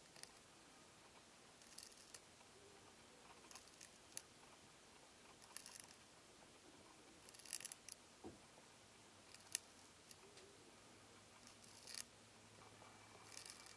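Faint, short scraping rasps at irregular intervals of about one to two seconds: a Euhadra quaesita land snail grinding the surface of a Schizophragma hydrangeoides leaf with its radula as it feeds.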